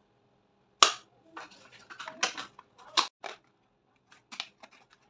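Makeup packaging being handled: a plastic eyeshadow palette and a cardboard foundation box. There is a sharp click a little under a second in, then a run of clicks and rustles, a second sharp snap about three seconds in, and lighter taps near the end.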